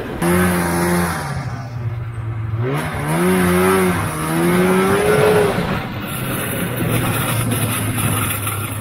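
Two-stroke snowmobile engines running on a trail ride. One holds a steady note while another revs up and down several times in the first half.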